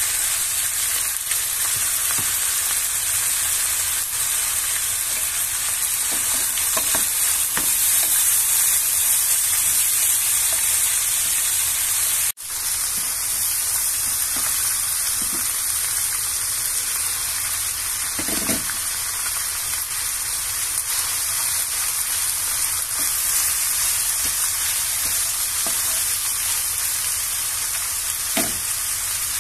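Shredded cabbage, carrots and onion sizzling steadily in a hot nonstick wok as they are stir-fried, with a wooden spatula stirring and scraping through them. The sizzle breaks off for an instant about 12 seconds in.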